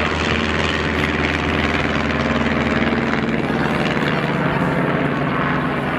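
Piston propeller aircraft engines droning steadily in a low, even hum.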